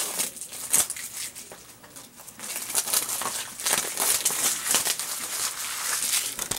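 Crinkling and rustling of plastic packaging with scattered clicks as a Blu-ray case is handled and unwrapped, busier from about two and a half seconds in.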